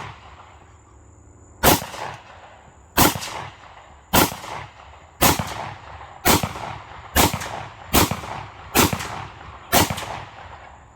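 A string of nine gunshots fired one after another, about a second apart and coming a little faster toward the end. Each shot has a trailing echo.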